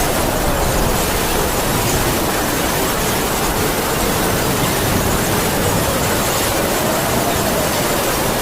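Heavy rain falling in a steady, dense hiss, with a howling wind whose thin moaning tone slowly rises and falls.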